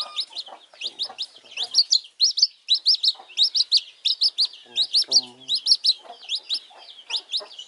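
A wet baby chick peeping continuously, short sharp high peeps at about three or four a second.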